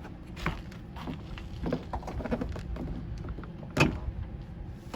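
A 2001 Toyota Tacoma's interior door panel being fitted onto the door: scattered small clicks and knocks as it is pressed into place, with one louder knock nearly four seconds in.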